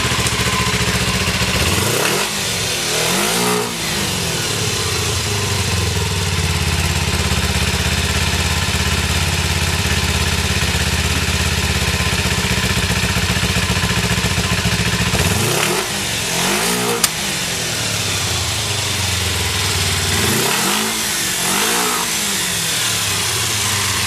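Kawasaki Eliminator 250SE's parallel-twin engine idling steadily, with the throttle blipped a few times: about two seconds in, again around fifteen to seventeen seconds, and again near the end, each time the revs rising and falling back to idle. It runs without abnormal noise. A single sharp click sounds about seventeen seconds in.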